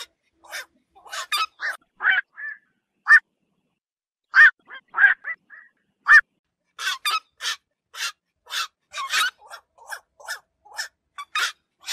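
Black-crowned night herons calling: short, harsh calls, spaced out with a couple of pauses at first, then coming in quick succession through the second half.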